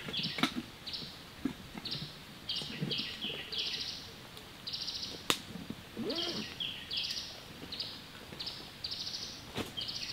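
Rustling and knocking as gear is handled at a backpack, with a couple of sharp clicks, under a high trilling animal call that repeats over and over from the forest. Footsteps on leaf litter come near the end.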